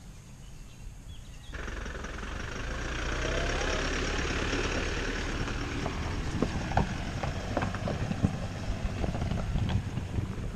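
Toyota SUV driving slowly up a gravel track: its engine running with a steady low rumble and the tyres crunching over stones, with scattered sharp crunches of loose gravel. It starts abruptly about a second and a half in, after a quieter outdoor stretch.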